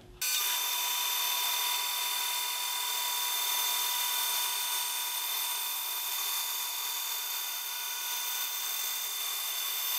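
Band saw running and slicing a very thin strip from a board: a steady hiss with several constant whining tones. It starts suddenly just after the start.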